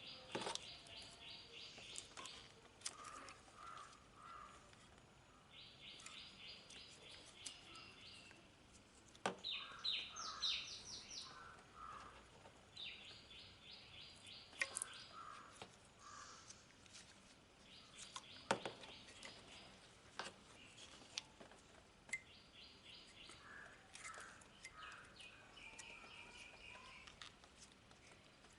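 A songbird singing a short, rapid trill of evenly repeated high notes, about one and a half to two seconds long and repeated every few seconds. Scattered sharp clicks and knocks of hand tools on metal are mixed in as the horns are fastened, the loudest about a third, half and two thirds of the way through.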